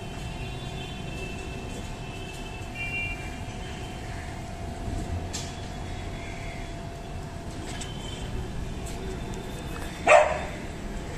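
A dog barks once, short and sharp, about ten seconds in, over steady background noise with a faint steady hum.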